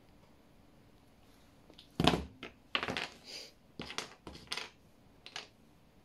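Hard plastic Genius Star puzzle pieces clicking and clattering as they are handled and set down on a hard floor: a string of short, sharp knocks, the loudest about two seconds in, the last a little past five seconds.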